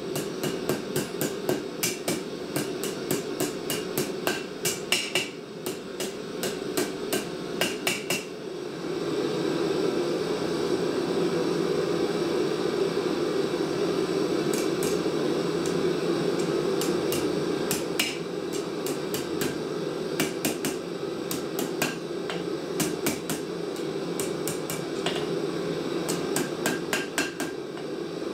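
Blacksmith's hand hammer striking red-hot file steel on an anvil: rapid runs of sharp blows for about eight seconds, then scattered groups of strikes. A steady roar runs underneath and grows louder after about eight seconds.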